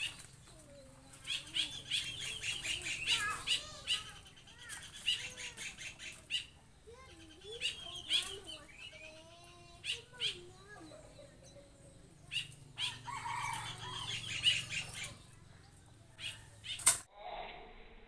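Parent yellow-vented bulbuls calling noisily in quick chattering bursts, with repeated wing flapping and sharp flicks, in clusters with short lulls between.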